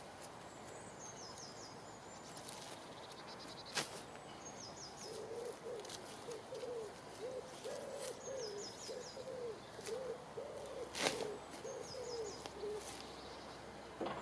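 A bird hooting: a run of about ten low, even, arched notes that starts about a third of the way in and stops shortly before the end. A small bird's short, high, stepped song phrase repeats every couple of seconds, and there are two sharp knocks, one before the hooting starts and one near its end.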